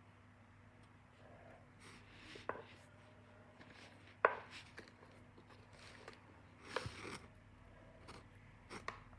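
Light clicks and taps of earrings being set down into the trays of a tiered jewelry box, with faint handling rustle between them. A handful of sharper taps are spread through, the loudest about four seconds in.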